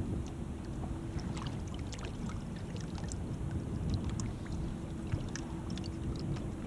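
Boat on open water: a steady low rumble of water and wind around the hull, with a faint steady hum that drops out for a couple of seconds in the middle, and scattered light ticks and small splashes.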